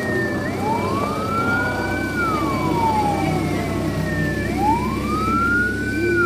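Vehicle siren wailing in slow cycles, each rising over about a second and a half and falling over about two and a half seconds, twice through, with a second higher siren tone and low engine rumble underneath.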